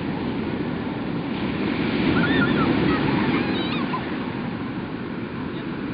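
Ocean surf washing in steadily, with wind buffeting the microphone. The surf swells a little about two seconds in, and a few short high calls sound faintly in the background.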